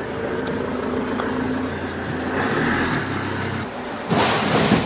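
A van's engine running steadily and building a little, then easing off, followed by a sudden loud crash about four seconds in as the van strikes the mocked-up room.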